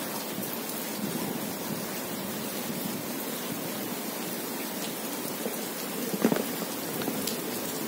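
Steady rain falling on waterlogged ground, paving and puddles, an even hiss, with a couple of faint taps near the end.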